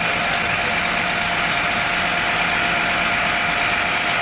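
Coach bus idling: a steady engine hum and hiss with a constant high whine.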